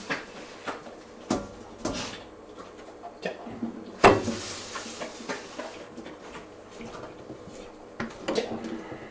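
A dog's muzzle knocking and scraping on an aluminium scent-detection board as it works the sniffing holes and picks up treats, with one loud metallic knock about four seconds in and a cluster of knocks near the end.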